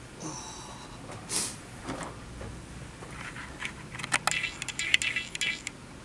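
Handling noise as a camera is picked up and held at arm's length: rustling and a swish, then a quick run of small clicks and rattles in the second half.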